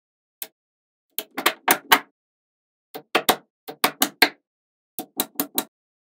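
Magnet balls clicking as they snap together, with sharp clicks coming in quick runs of three to five and pauses of about a second between runs.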